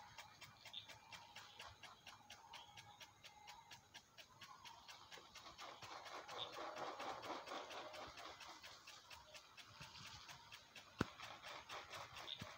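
1-inch impact sprinkler ticking steadily, about five ticks a second, as it turns and sprays water. A rush of spray swells through the middle, and there is one sharper click near the end.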